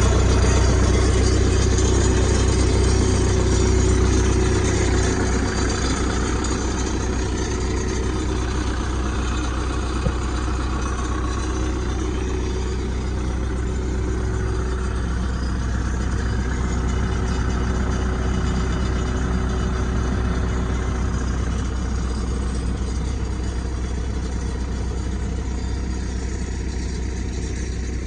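Diesel engine of a New Holland 555E backhoe loader running at a steady idle, easing off slightly about five seconds in.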